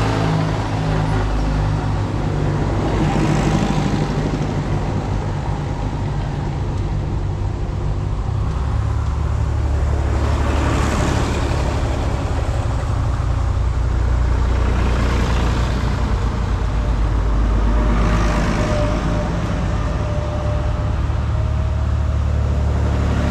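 Tractors driving past one after another, their engines running steadily, with a louder swell each time one goes by, four times over.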